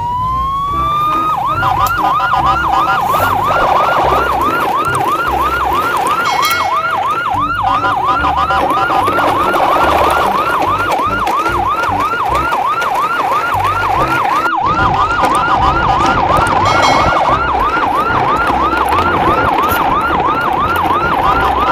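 Yelp-style siren: after a short rising start, a fast up-and-down wail repeating about three times a second, loud and unbroken.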